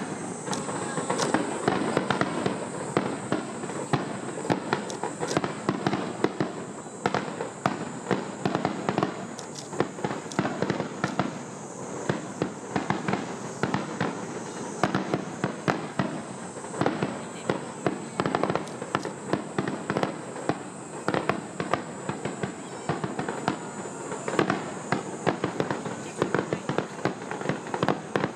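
Fireworks finale barrage: aerial shells bursting in rapid, unbroken succession, many sharp bangs and cracks over a continuous wash of noise.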